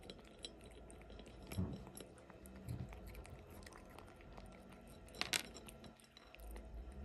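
A cat eating dry kibble from a plate: faint crunching with many small clicks. There are a couple of low knocks about one and a half and two and a half seconds in, and a sharp clink about five seconds in.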